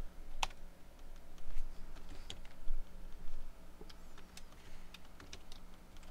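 Computer keyboard keystrokes: a handful of separate key clicks at irregular intervals as a short reply is typed at a terminal.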